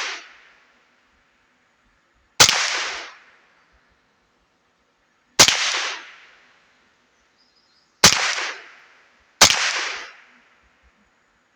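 Ruger 10/22 .22 LR semi-automatic rifle fired four times at an uneven pace, the shots a few seconds apart and the last two closer together. Each sharp crack trails off in an echo lasting about a second.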